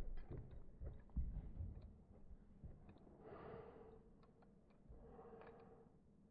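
Dogs playing with a plush toy on carpet: faint soft thumps and clicks in the first couple of seconds, then two breathy sounds from a dog, about three and five seconds in.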